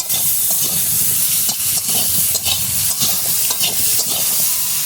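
Eggplant slices sizzling steadily in hot oil in a kadai, with short scrapes of stirring now and then.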